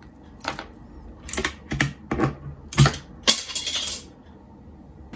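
The spacebar of an Armageddon MKA 7C mechanical keyboard being pressed several times. Its OTEMU Blue clicky switch sits under a Costar-style stabilizer. There are about six separate key strikes, and the last ones come in a quick cluster near the end.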